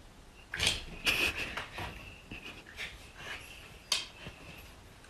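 A dog sniffing and panting: a few short, breathy puffs of air, the strongest about a second in and near four seconds in.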